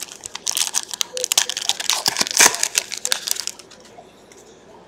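Foil wrapper of a trading-card pack being torn open and the cards pulled out, a rapid run of crackling clicks that stops about three and a half seconds in.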